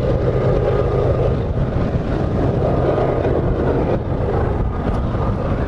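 Distant diesel locomotives of a long coal train working upgrade: a steady low rumble with a faint steady whine above it. Wind buffets the microphone.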